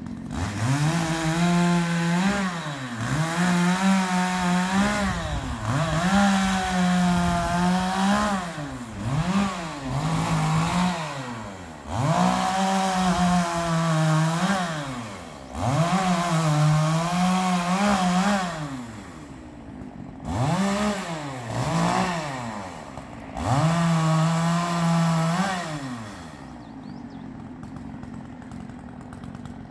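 A gas chainsaw revving to full throttle in about ten bursts of one to three seconds each, dropping back between them as it cuts up the limbs of a wind-blown tree. It settles to a steady idle near the end.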